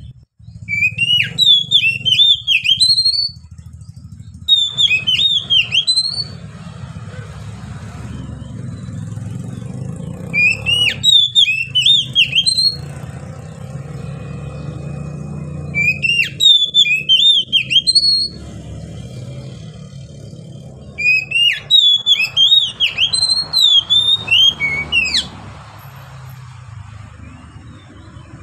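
Oriental magpie-robin singing in full voice: five loud bursts of rapid, varied whistled and warbled phrases, each a couple of seconds long with short pauses between. A steady low hum runs underneath.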